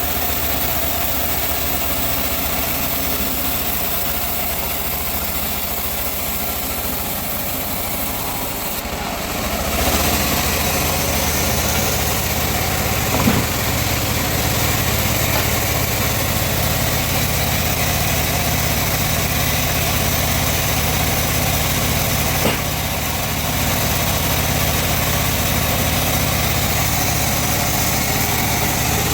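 Engine-driven sawmill machine running steadily, growing louder and fuller about ten seconds in, with a couple of short knocks later on.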